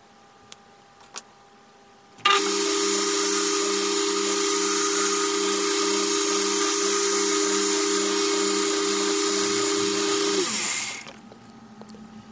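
A few light clicks, then an electric power tool starts abruptly and runs steadily for about eight seconds with a hum and a hiss, before it is switched off and winds down with falling pitch.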